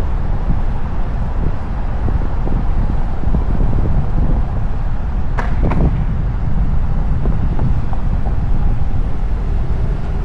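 Wind buffeting the microphone over a steady deep rumble, with a brief sharp sound about halfway through.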